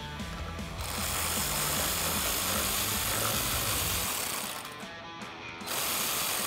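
Cordless electric ratchet with a 10 mm socket on an extension, its motor whirring as it backs out a splash-shield bolt. It runs from about a second in until near the five-second mark, pauses briefly, then starts again.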